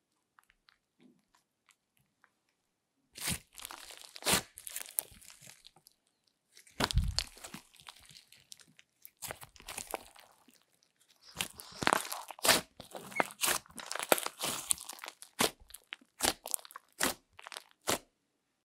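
Thick slime being squeezed, stretched and poked by hand: sticky crackling and small popping clicks that start about three seconds in, with a low thud around seven seconds in. The clicks come thick and fast in the second half.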